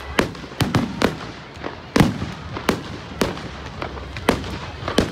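Fireworks bursting in a quick, irregular string of about ten sharp bangs, the loudest about two seconds in.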